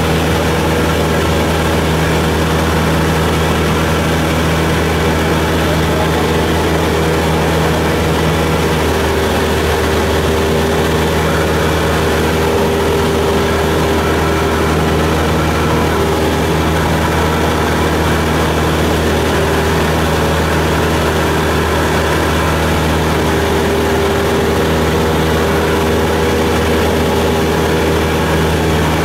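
Cessna 172's piston engine and propeller droning steadily in cruise, heard from inside the cabin, with a slight change in tone about nine seconds in.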